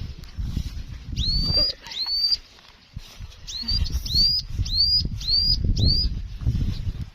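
A bird calling with a repeated high, up-slurred whistle, seven calls: two near the start, then a faster run of five. A low, uneven rumble lies underneath and is louder than the calls.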